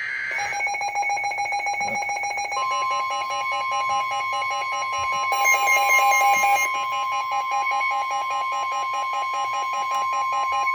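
NOAA Weather Radio alert sequence. It opens with the tail of a SAME data burst, then a weather-radio receiver's rapid electronic alarm beeping. From about two and a half seconds in, the steady single-pitch warning alarm tone sounds over the beeping, announcing a new warning broadcast.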